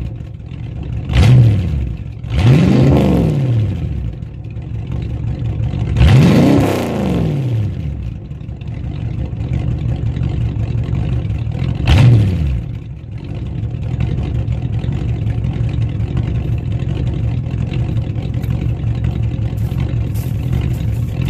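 Straight-piped stock Ford 302 (5.0 L) V8 of a 1982 Mustang GT, revved four times in quick throttle blips, the third the longest and highest, then settling into a steady idle for the last several seconds.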